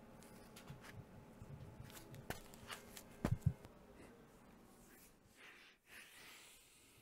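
Quiet room with light rustling and a few small knocks as a person moves about and sits down; a pair of soft low thumps comes about three seconds in.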